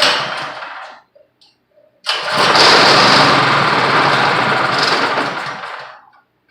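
Small 163 cc single-cylinder pressure-washer engine being pull-started: it fires in a short burst, then about two seconds in catches and runs for about four seconds before dying out.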